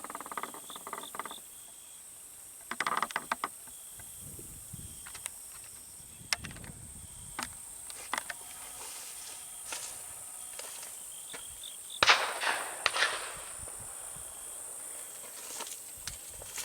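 Steady high-pitched insect chorus, with scattered sharp clicks and knocks and one louder noisy burst about twelve seconds in.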